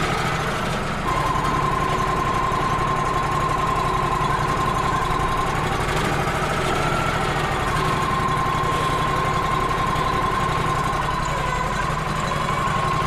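Wood-Mizer LT35 HD portable sawmill running steadily just after starting up. A steady whine from the machine comes in about a second in and rises briefly in pitch near the middle.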